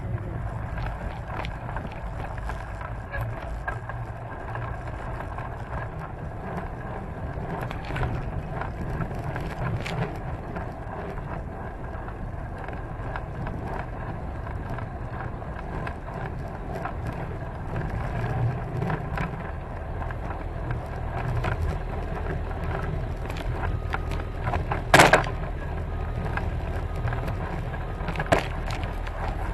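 A vehicle engine running steadily as it travels over snow, heard as a constant low rumble, with one brief loud sharp noise about 25 seconds in.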